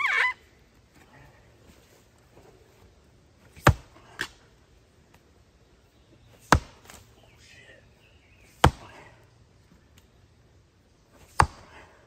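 Steel head of a Fiskars splitting tool chopping into a large round of ash: four heavy blows a couple of seconds apart, the first followed by a lighter knock.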